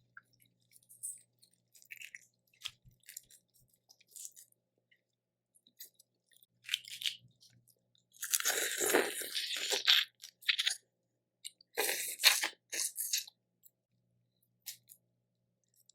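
Close-miked eating of a Cajun seafood boil: small clicks of shells and food being handled, then a loud stretch of crunching and chewing about eight seconds in, with a few more sharp crunches a few seconds later.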